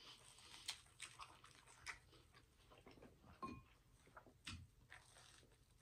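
Faint close-up chewing of a soft dinner roll: quiet wet mouth clicks, a handful of them spaced irregularly.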